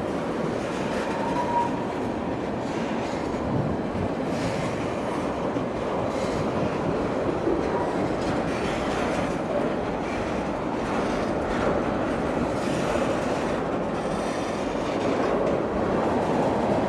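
Freight train cars rolling past: a steady rumble of steel wheels on rail with clicking over the rail joints and a brief faint wheel squeal about a second and a half in.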